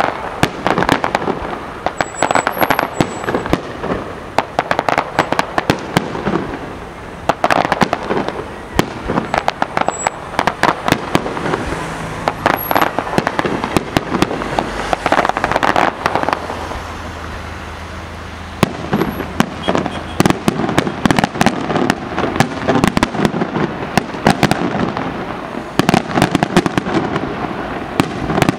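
Aerial fireworks display: a rapid, near-continuous series of shell bursts and sharp cracks. It eases off briefly about two-thirds of the way through, then picks up again.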